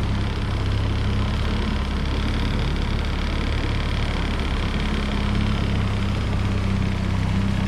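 Boat's outboard motor running at a steady speed: an even, unchanging drone.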